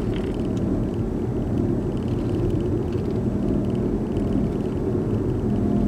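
Steady low road and tyre drone inside the cabin of a moving Audi A4 B6, with a faint regular ticking higher up. It is the trembling hum heard when steering left at speed, the sign of a worn front-right wheel bearing.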